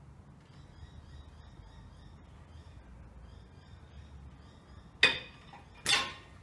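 A crow cawing twice, loud and harsh, about a second apart near the end, over faint high chirping of small birds.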